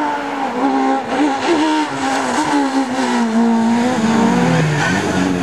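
Small hatchback rally car's engine revving hard at speed, its pitch jumping up and down with throttle and gear changes, then falling as the car passes about four seconds in.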